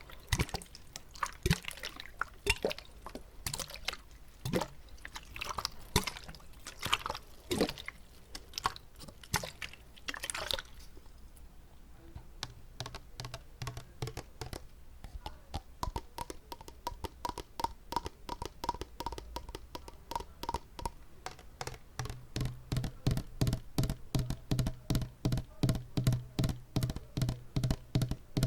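Close-up tapping and handling of a water bottle for ASMR: irregular taps and knocks at first, then from about twelve seconds in a steady run of quick taps with a ringing pitch, which grows louder and faster, about three to four taps a second, in the last third.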